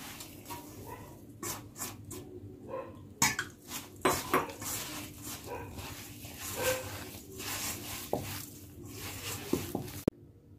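Hands kneading wet whole-wheat dough in a stainless steel bowl: irregular squishing and rubbing, with knocks against the bowl and a few short pitched squeaks mixed in. It stops abruptly near the end.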